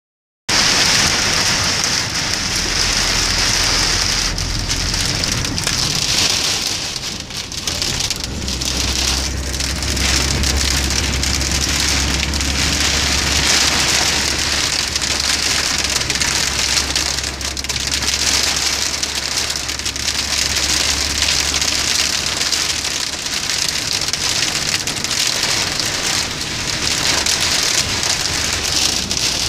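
Torrential rain hammering on a car's roof and windscreen, heard from inside the car as a loud, unbroken hiss.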